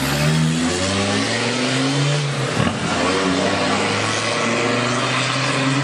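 Land Rover Discovery with a Td5 five-cylinder turbodiesel pulling away and accelerating. The engine note rises, drops at a gear change about two and a half seconds in, then rises again.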